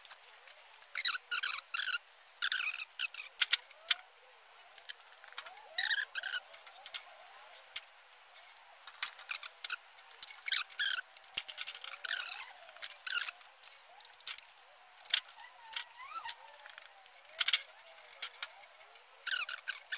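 Irregular clinks and jangles of metal tools and engine parts being handled, coming in short clusters every second or two with brief pauses between.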